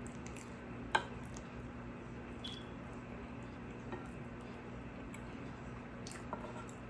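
Metal spoon scooping soft steamed buns soaked in coconut milk, with wet squishing and light clicks of the spoon against the plate; one sharp clink about a second in is the loudest. A steady low hum runs underneath.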